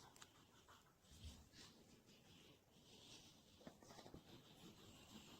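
Near silence: faint room tone with soft hissy swells and a few light ticks.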